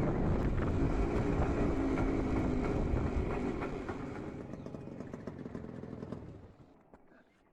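IZh Jupiter 5 motorcycle's two-stroke twin-cylinder engine running, fading away over the last few seconds until it is faint near the end.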